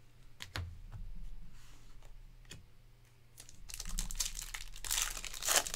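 A few light clicks of cards being handled, then the foil wrapper of a trading-card pack crinkling loudly as it is handled, from about three and a half seconds in.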